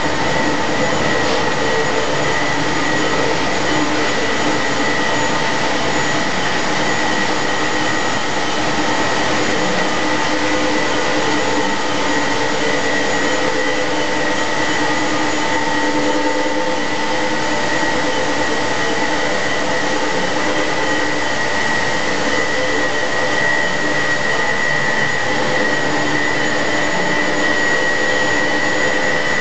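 Loud, steady drone of chemical-plant process machinery: an even roar with several constant whining tones on top, the strongest a high whine.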